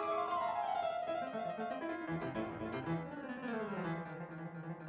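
Background music: a light classical-style keyboard tune, like piano or harpsichord.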